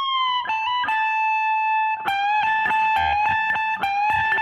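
Stratocaster-style electric guitar playing a single-note lead lick in A high on the neck: a held bent note that is let down, a few slower notes, then a quicker run from about two seconds in. The lick slides from the A major pentatonic into the A minor pentatonic, digging in on its flat seven.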